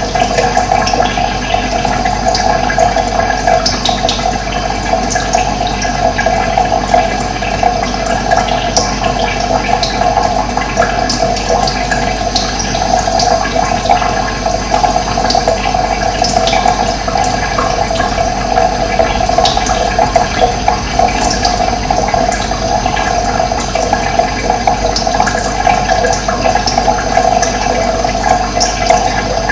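Running water flowing steadily, an even rushing sound that does not change, with short high chirps scattered through it.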